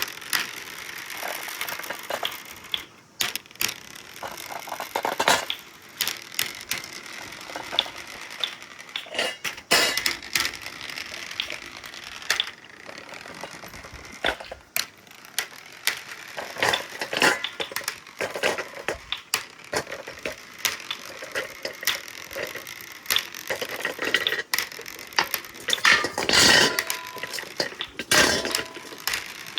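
Marbles rolling and clattering along a stainless steel marble-run track, with a constant stream of sharp clicks as they hit the track and each other. A mechanism keeps up a ratchet-like ticking, and the clatter grows louder near the end.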